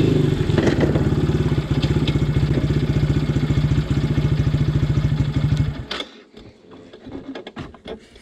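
ATV engine running as the quad rolls to a stop, settling into an even, pulsing idle, then switched off about six seconds in. A few faint clicks and rustles follow.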